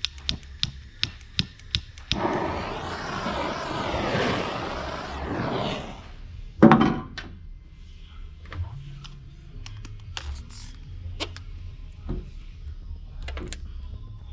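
Paintless dent repair tools working on a car body panel: a few light taps, a few seconds of rushing noise, then one heavy thunk a little past the middle, followed by scattered light clicks and taps.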